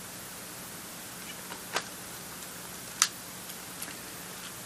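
A few small clicks and ticks of camera gear being handled, the two clearest about a second and a half apart, over a steady faint hiss and hum.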